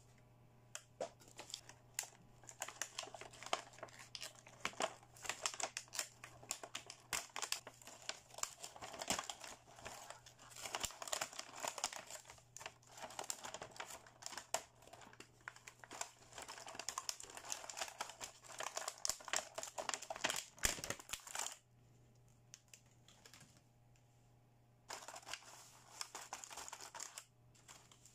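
Clear plastic wrapping on a toy case crinkling and crackling under the fingers as it is handled and worked off, in dense rapid crackles. The crackling stops for a few seconds about three-quarters of the way through, then comes back briefly.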